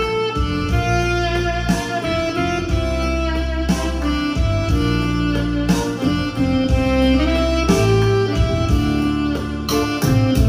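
Instrumental music: the intro of a karaoke backing track playing through a karaoke speaker system, with held notes over a steady bass line.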